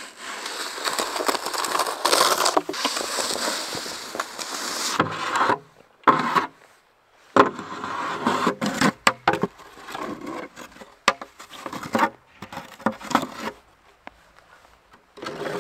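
Snow shovel scraping snow off a wooden picnic table and bench: a long continuous scrape for about five seconds, then a series of shorter scrapes and sharp knocks of the blade on the wood and on a metal fire pit.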